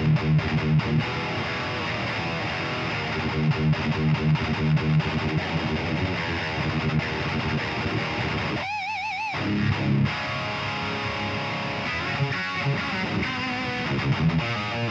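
Distorted electric guitar with a high-output pickup playing chugging metal riffs through an amp, with a brief wavering high note, like a pinch harmonic with vibrato, about nine seconds in.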